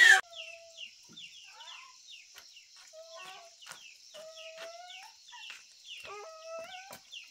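Chickens calling: several drawn-out clucking calls and many short, high, falling peeps, fairly faint.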